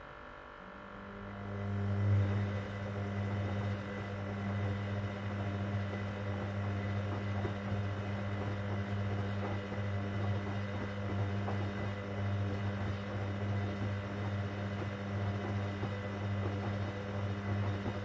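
Hoover Dynamic Next washing machine running with a steady low hum partway through a cotton 60 wash, starting about a second in, holding level and stopping right at the end.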